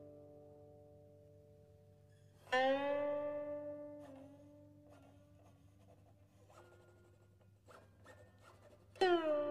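Slow background music on a plucked string instrument. Sparse notes ring and fade slowly, with two loud plucked notes that bend slightly into pitch, one about two and a half seconds in and one near the end.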